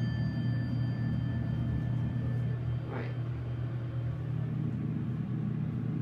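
Westinghouse passenger elevator car descending, with a steady low hum of the moving car. The ringing of its dinner-bell chime fades away over the first couple of seconds.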